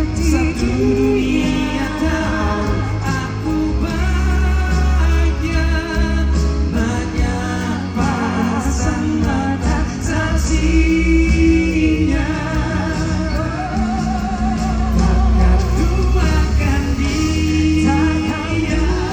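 Live pop duet performed with a band: sustained bass and chords under sung lines held long with vibrato.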